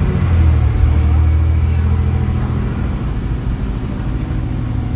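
Dennis Trident double-decker bus engine running as the bus travels, heard from inside on the upper deck: a steady low drone, a little louder from about half a second to two seconds in, then easing off.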